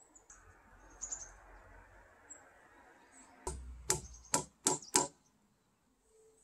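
About five hammer blows on timber in quick succession, sharp knocks a little under a second apart, about halfway through.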